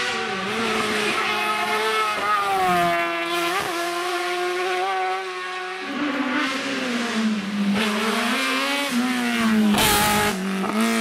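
Racing car engines at full throttle on a hillclimb, the pitch climbing and dropping sharply with quick gear changes. About six seconds in a second car, a red open-wheel single-seater, takes over and passes close by, with a loud rush just before the end.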